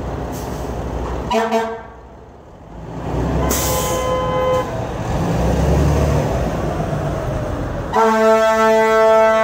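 Vehicle horns on a blocked street: a short honk about a second in and another around four seconds, over a heavy engine rumble. Near the end a loud, steady horn blast starts and holds.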